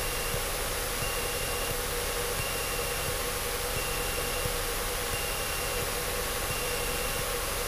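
Cessna 152 cabin noise on approach: the four-cylinder Lycoming O-235 engine running at reduced power, with airflow, heard as a steady hiss and hum. A faint high beep repeats about once a second.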